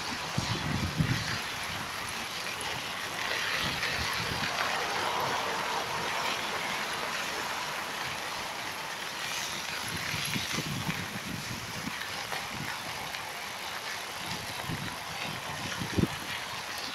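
Wind buffeting a smartphone's microphone during a bicycle ride, over a steady rushing noise of the bike rolling along a paved path. The rumbling thumps come and go, and a single sharp knock sounds about a second before the end.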